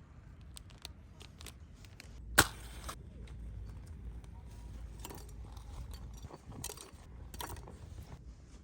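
Scattered light clicks and knocks of small objects being handled, with one sharp click about two and a half seconds in followed by half a second of hiss.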